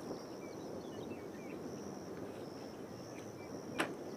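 Outdoor ambience: a steady high insect trill over low, even rushing noise, with a few faint chirps and a single sharp click near the end.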